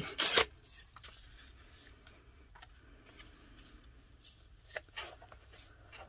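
Paper rustling and rubbing: a short loud crinkle of torn kraft paper right at the start, then faint handling and rubbing sounds as it is pressed down on a journal page, with a small rustle near the end.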